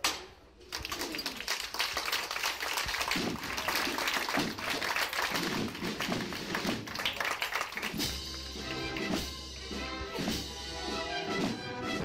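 Brass band music with sharp percussion taps throughout; sustained brass chords come to the fore in the last third.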